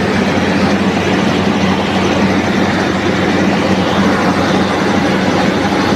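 Combined rice milling machine running steadily, with a low hum under a dense mechanical rushing noise.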